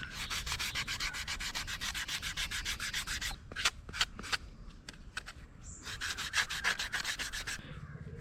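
Sandpaper rubbed back and forth over a cut piece of rubber sandal, shaping a handmade fishing lure: a fast run of rubbing strokes, a pause of about two seconds with a few single strokes, then another run.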